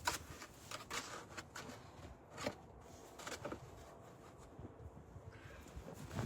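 Faint, irregular scrapes and crunches of snow being cleared, a few short strokes in the first half, then quieter.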